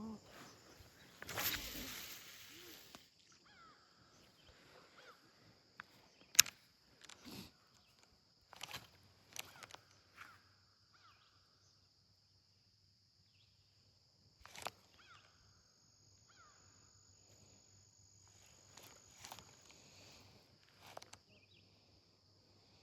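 Steady high-pitched insect chorus, with scattered sharp clicks and knocks from handling and a brief loud rush about a second and a half in.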